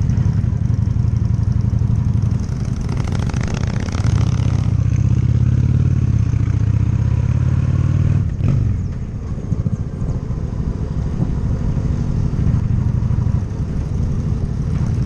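Loud exhaust of a Honda Shadow V-twin cruiser motorcycle under way, with a deep, steady rumble. The engine note eases off and picks up again about eight seconds in.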